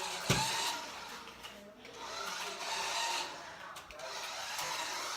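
A toy remote-control car's small electric motor whirring, louder in a stretch around the middle, with a knock just after the start.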